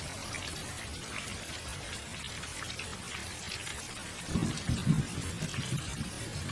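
Steady patter of rain, with a low rumble of thunder swelling from about four seconds in.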